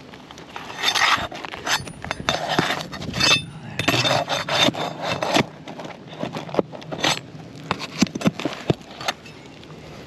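A metal roofing tool scraping and rasping under 17-year-old asphalt shingles while prying out nails, in three stretches of about a second each in the first half, then scattered clicks and taps.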